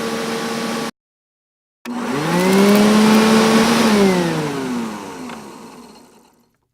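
Two machine sound-effect clips. First a steady motor hum cuts off about a second in. After a short silence a motor spins up with a rising whine, runs steadily for about two seconds, then winds down with falling pitch and fades out.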